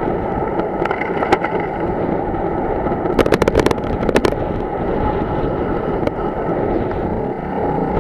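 Wind noise on the microphone of a bicycle-mounted camera while riding along a road, a steady rumbling hiss. A few sharp clicks near the start and a quick run of rattling clicks between about three and four seconds in.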